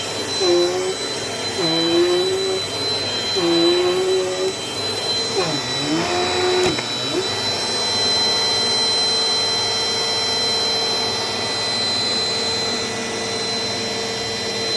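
Dirt Devil Dynamite Plus upright vacuum cleaner running, with a steady high motor whine. For the first several seconds its lower note wavers and dips repeatedly, once sharply about five and a half seconds in; then it settles into an even drone.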